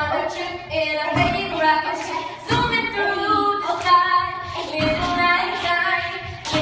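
A woman singing, her voice sliding between held notes, with a few sharp hits behind it.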